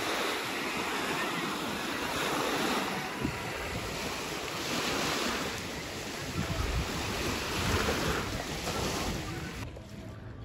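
Sea waves washing in, rising and falling in surges every couple of seconds, with wind buffeting the microphone. The sound drops off suddenly near the end.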